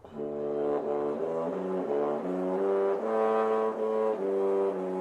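Short intro tune of brass-toned chords, several notes sounding together and changing every half second or so. The last chord comes in about four seconds in and is held.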